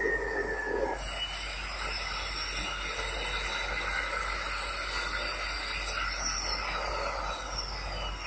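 P&H electric rope shovel working: a steady mechanical din with high whines and metallic squeals that glide up and down in pitch, starting about a second in.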